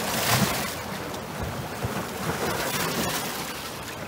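Wind buffeting the microphone over choppy lake waves washing against shore rocks, with a stronger gust a moment in.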